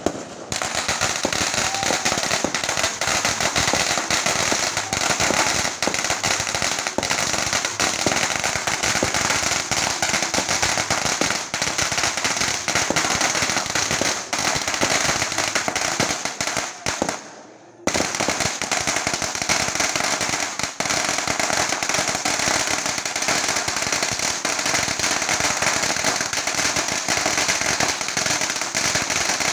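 A long hanging string of firecrackers going off in a rapid, continuous rattle of bangs. It breaks off briefly a little past halfway, then picks up again.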